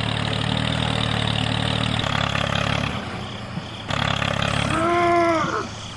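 A small motor running steadily, dropping away about three seconds in and picking up again a second later. Near the end there is a short hooting call that rises and then falls.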